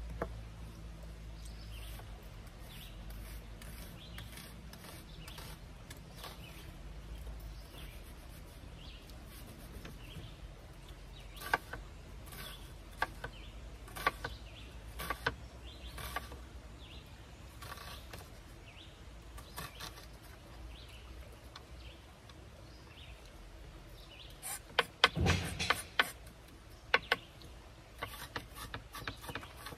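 Chef's knife chopping an onion on a wooden cutting board: scattered sharp taps on the board, a cluster of louder knocks near the middle of the second half, and quick light taps near the end as the onion is diced fine.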